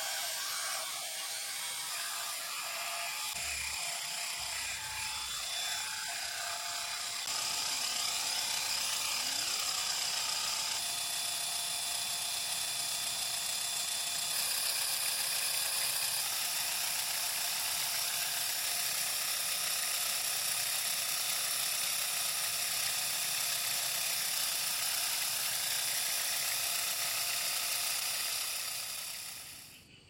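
Small DC electric motor running steadily, driving a homemade miniature concrete pump, with a steady high-pitched whine. It grows a little louder about seven seconds in and fades away near the end.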